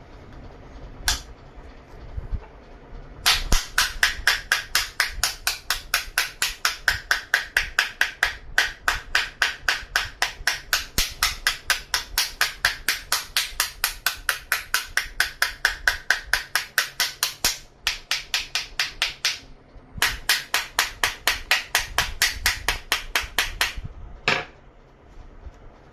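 Rapid, even tapping on the hard plastic shell of a Godox WB30P flash battery pack with a screwdriver handle, about four knocks a second, in a long run, a short pause, then a shorter run. The shell is glued shut, and the tapping works at the glue seam to open it.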